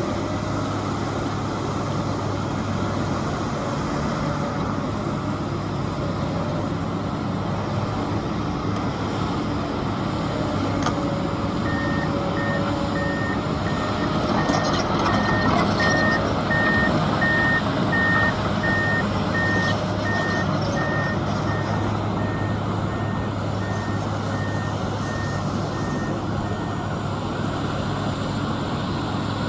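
Heavy construction machinery running steadily, with a reversing alarm beeping at about one beep a second through the middle part, during which the machinery gets a little louder.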